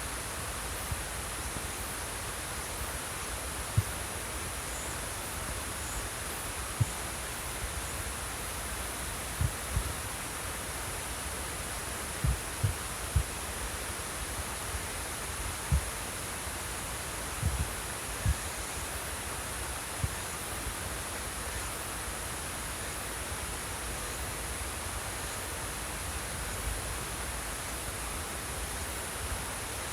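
Flowing water rushing steadily, with insects trilling steadily in a high pitch. Short low thumps break in a dozen or so times through the first two-thirds.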